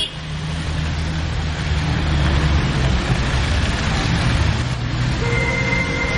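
Cars driving slowly past one after another in a convoy, engines running with a steady low rumble and tyre noise on the road. A steady high tone sets in about five seconds in.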